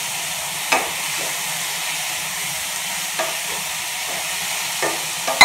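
Prawns sizzling in hot oil in a pan, stirred with a wooden spatula that clicks against the pan a few times. A loud, sharp metallic knock comes right at the end.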